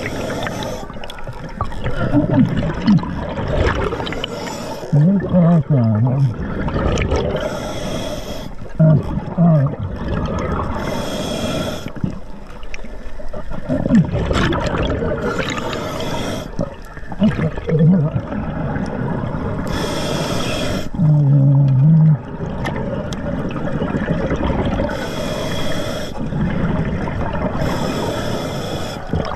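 Scuba diver breathing through an Atomic regulator underwater: every four seconds or so an exhaled rush of bubbles bursts out of the exhaust, with low wavering tones and gurgling between breaths.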